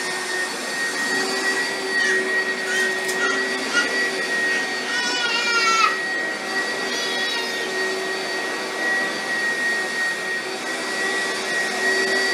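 Upright vacuum cleaner running steadily, its motor giving a constant whine over a rushing noise. A toddler lets out high squeals over it a few times, most strongly about five seconds in.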